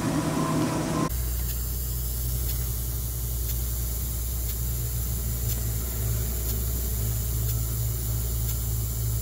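Water-damaged, corroded Bose cockpit speaker giving out a steady low hum with hiss and a few faint crackles instead of music, starting about a second in.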